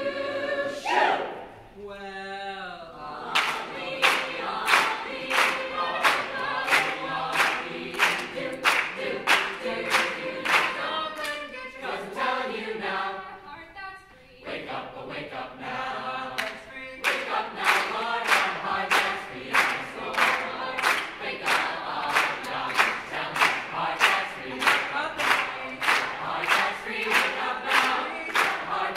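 Mixed choir singing an upbeat song together, with hand claps on the beat about two a second. The clapping drops out for a few seconds around the middle, then comes back and keeps going.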